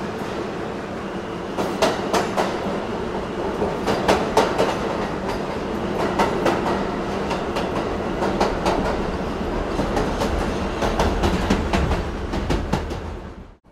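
O scale model trains rolling along two-rail track, a steady rumble of wheels and motors with irregular clicks as the wheels cross rail joints and switches. It cuts off abruptly near the end.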